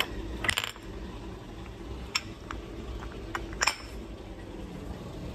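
Glass spice jars clinking and knocking as they are handled and set down: several separate clinks, a cluster about half a second in and more between two and four seconds in. Under them is the steady low hum of a running dishwasher.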